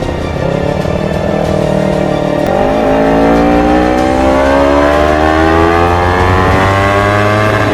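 Kawasaki Ninja 250 FI parallel-twin engine through an Akrapovic full-system exhaust, accelerating hard. The revs climb, drop briefly at an upshift about two and a half seconds in, then rise steadily for several seconds until the next shift at the very end.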